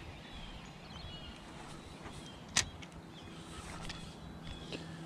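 Quiet outdoor ambience with a few faint, short bird chirps and one sharp click about halfway through.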